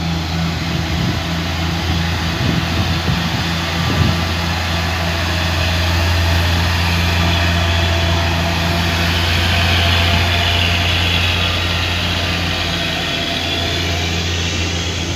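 Cargo truck's diesel engine pulling slowly up a steep climb: a steady deep drone that grows louder to a peak about ten seconds in as the truck passes close.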